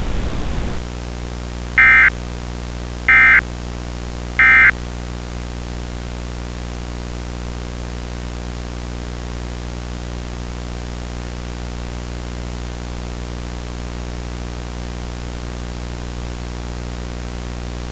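Emergency Alert System end-of-message tones: three short, shrill digital data bursts about a second and a quarter apart, the 'NNNN' code that closes an EAS alert. A steady low hum carries on under and after them.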